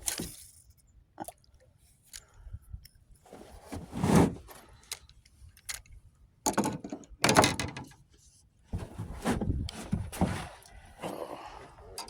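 Irregular thumps, knocks and rustling from gear being handled in a small fishing boat, with the loudest knocks about four and seven seconds in.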